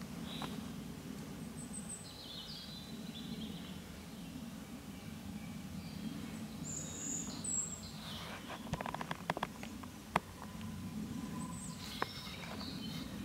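European badgers scuffling on their sett, with a quick run of clicks and rustles in the second half and a single sharp click near the end. Under it runs a steady low background hum, and birds give short, scattered calls.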